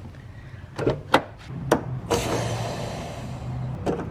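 Fuel tank gas cap being twisted off, with a few sharp clicks, then a hiss of built-up tank pressure escaping about halfway through that fades away over a couple of seconds. A couple more clicks come near the end.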